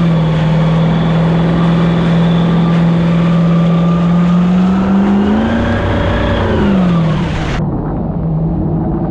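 6.0-litre LS V8 engine in a Yamaha WaveRunner FZR jet ski running at speed, over the rush of spray off the hull. Its pitch holds steady, rises about five seconds in, then drops away; near the end the sound turns duller.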